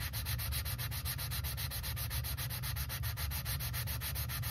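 A valve being lapped into its seat in an Edelbrock aluminum cylinder head: the lapping stick spins the valve back and forth against lapping compound, giving a steady, rapid, gritty grinding rasp. The sound has changed in a way the mechanic reads as the valve lapping in to its seat.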